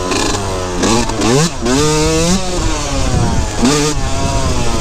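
2003 Yamaha YZ125's 125cc single-cylinder two-stroke engine revving hard under throttle, its pitch climbing twice in quick succession about a second in, dropping away as the throttle closes, then rising again near the end. A haze of wind noise runs under it.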